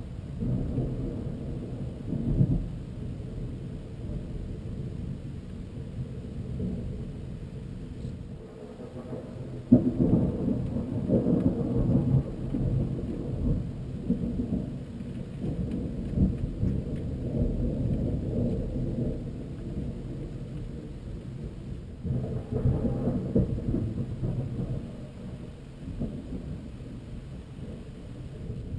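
Thunder rolling in long low rumbles that swell and fade, with a sudden loud clap about ten seconds in and another rumble building a little past twenty seconds.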